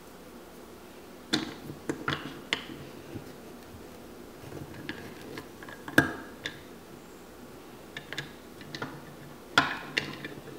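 Hard plastic clicks and knocks from the Play-Doh Diggin' Rigs Chip the Cutter toy truck being handled as Play-Doh is pressed into its mould: a few clicks in quick succession, a sharper single knock about six seconds in, and another short run of clicks near the end.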